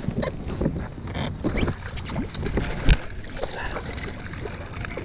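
Irregular knocking and clattering of gear handled in a small boat, over a low rumble, with one loud thump about three seconds in.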